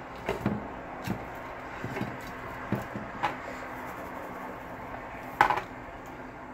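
Scattered clicks and knocks of seasoning containers being handled and set down on a wooden countertop beside a glass baking dish, the loudest about five and a half seconds in.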